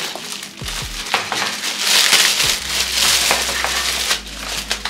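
Clear plastic wrapping crinkling and rustling as the film-wrapped parts of a wire dish rack are handled and pulled open, loudest around the middle, with a few light knocks near the start.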